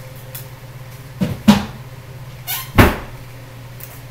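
Two sharp knocks, about a second and a half apart, each just after a lighter knock, over a steady low hum.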